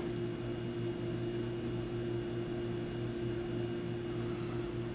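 A steady low electrical hum with a faint hiss, unchanging throughout.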